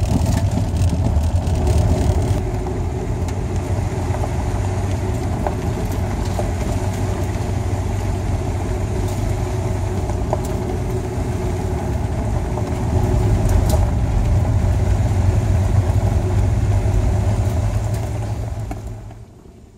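Vehicle running along a gravel road, heard from inside the cab as a steady low engine and tyre rumble. It gets a little louder for several seconds late on, then drops away near the end.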